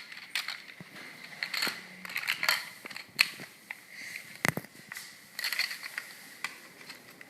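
Scattered small plastic clicks and rattles from handling a toy remote-control car while fitting its batteries and battery parts, with a sharper click about four and a half seconds in.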